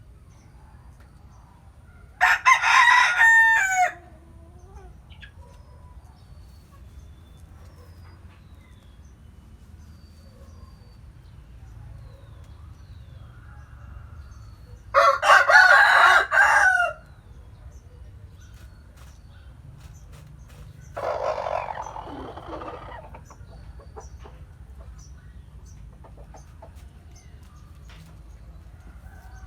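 Bantam roosters crowing three times: two loud crows a few seconds in and about halfway through, then a fainter, rougher crow soon after.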